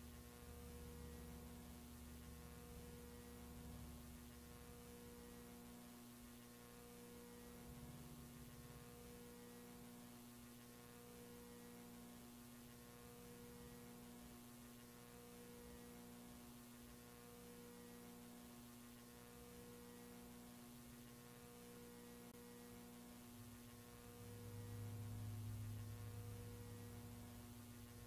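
Near silence with a faint, steady electrical hum that pulses slowly and evenly about every two seconds; near the end a lower hum swells up for a few seconds.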